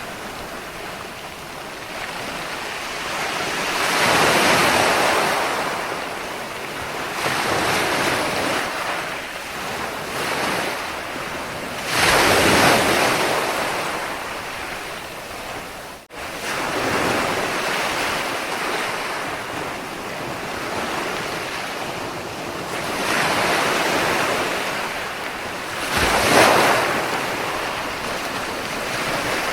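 Sea waves breaking and washing on a shore, swelling and falling back every few seconds, with the biggest surges about halfway and near the end. The sound drops out for an instant just past halfway.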